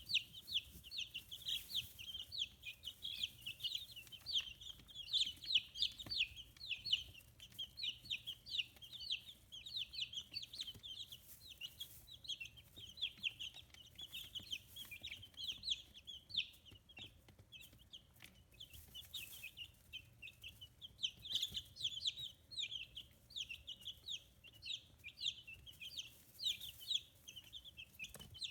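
A brood of 15-day-old chicks peeping all together. Many short, high, falling chirps overlap in a dense unbroken stream.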